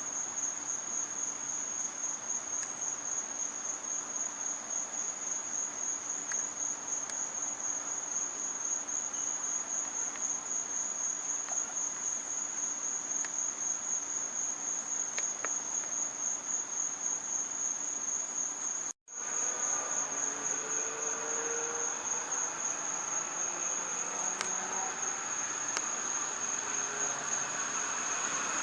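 Crickets chirping in a steady, fast high-pitched trill, with a few faint clicks over it; the sound cuts out for a moment about two-thirds of the way through.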